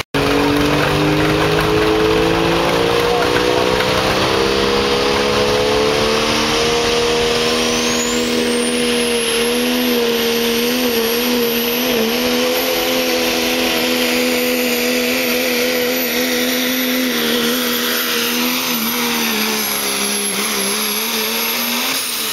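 Turbocharged diesel pickup engine at full throttle pulling a weight sled: the revs climb steadily for the first several seconds, a high turbo whistle sweeps up about 8 seconds in and holds, and the engine stays flat out, wavering briefly around 10 to 12 seconds and sagging near the end as the truck is pulled down by the load.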